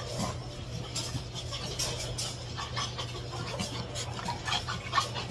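Small dogs eating at a food bowl on a tiled floor: irregular soft clicks and scraping, over a steady low hum.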